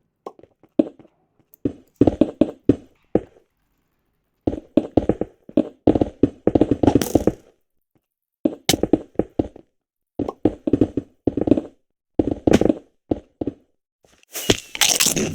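Logitech G213 Prodigy keyboard's membrane Mech-Dome keys being typed in quick runs of clacks, with short pauses between the runs. About a second before the end a denser, brighter clatter begins.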